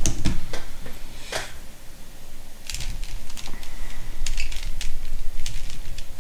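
Plastic Rubik's Cube layers being turned by hand: a run of irregular clicks and clacks as the faces are twisted through an algorithm.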